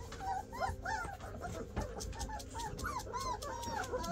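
A litter of young puppies, three to four weeks old, whimpering and squeaking: many short high squeals that rise and fall, overlapping, several a second.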